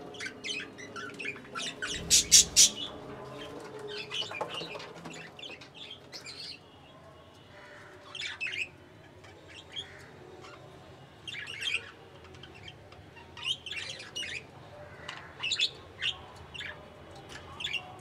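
Budgerigars chirping and chattering in short high calls throughout. About two seconds in there is a brief loud flurry of wings splashing as one budgie bathes in a water dish.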